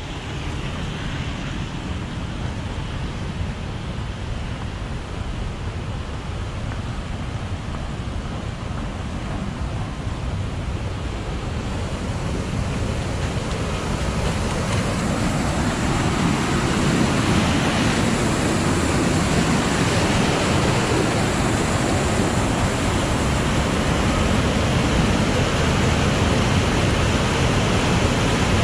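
Steady rush of fast-flowing water, a waterfall or beck running high after heavy rain, growing louder about halfway through.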